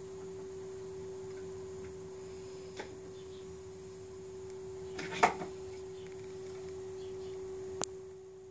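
A steady single-pitch electronic hum, with a few sharp clicks; the loudest clicks come in a short cluster about five seconds in.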